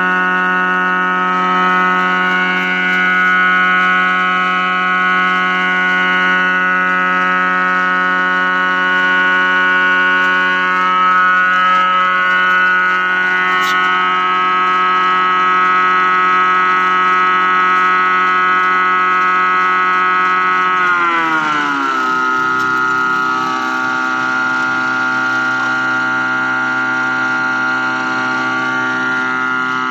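AMR 500 supercharger aerator blower, belt-driven by a 1 hp three-phase induction motor on a Mitsubishi inverter, running with a steady whine of many tones. About 21 seconds in, the whole whine falls in pitch over about a second and settles lower, as the inverter's frequency is turned down and the blower slows.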